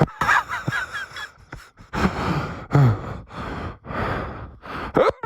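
Saint Bernard dog huffing and sighing in a run of loud breaths, with a short low groan that falls in pitch about two to three seconds in.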